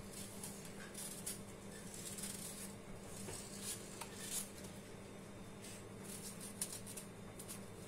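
Kitchen knife peeling and cutting a vegetable by hand: faint scrapes and light ticks of the blade, with small knocks on a steel pot, over a steady low hum.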